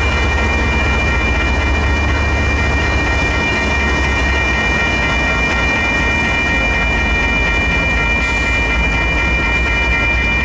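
CSX diesel-electric freight locomotives passing at close range, their engines running with a steady low hum and wheels clacking over the rails. A steady high ringing, the crossing bell, sounds over it throughout.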